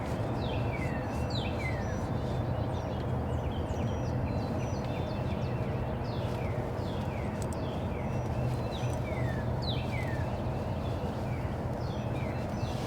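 Songbirds singing: a steady string of short, clear whistles that slide downward, repeated over and over, over a constant low background rumble.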